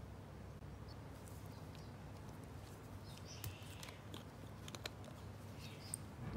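Faint handling sounds of gloved hands on a small glass bottle of enamel thinner: light rustles and small clicks as the plastic screw cap is twisted off. A soft knock comes near the end.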